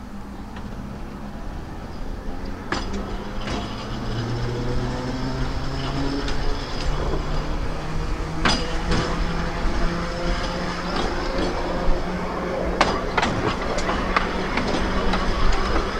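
Narrow-gauge electric tram running on its rails and gathering speed: a steady low motor hum with a whine that rises in pitch, and the wheels give scattered sharp clicks and knocks over the rail joints.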